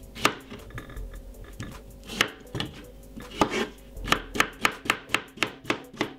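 Kitchen knife slicing a cucumber on a wooden chopping board. A few separate cuts come first, then a quick, even run of knife taps, about five a second, from about four seconds in.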